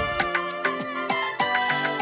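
Instrumental passage of a Swahili gospel song: held chords over regular percussion hits, with no singing.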